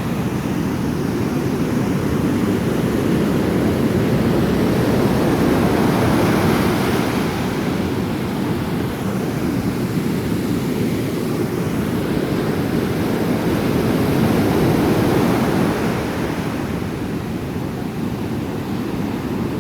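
Ocean surf breaking, a steady rushing wash that slowly swells and eases, with wind buffeting the microphone.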